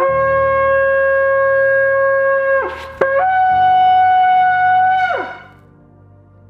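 A shofar is blown in two long blasts. The first is a steady lower note that breaks off with a drop in pitch after about two and a half seconds. The second, a higher note, is held for about two seconds before it falls away in pitch.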